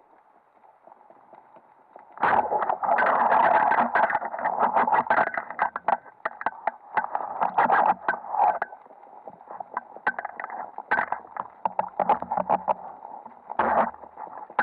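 Underwater clattering and crackling, heard through the camera's underwater housing. It starts suddenly about two seconds in after a faint hiss, then comes in dense bursts.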